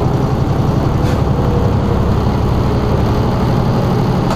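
Semi truck's diesel engine and road noise drone steadily inside the cab while it cruises at highway speed.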